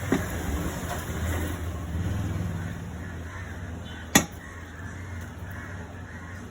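A single sharp knock about four seconds in, from hand work on the engine parts while an oil seal is being fitted. Under it, a steady low rumble, with a smaller knock right at the start.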